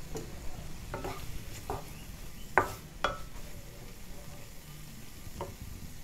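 Chicken pieces sizzling softly in a non-stick pan while a wooden spatula stirs them. A handful of sharp scrapes and knocks come from the spatula against the pan, the loudest about two and a half seconds in.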